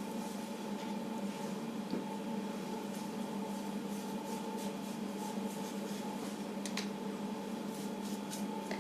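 Faint, irregular brushing and rubbing strokes of a comb-brush working a wet, oily hair mask through hair, over a steady background hum.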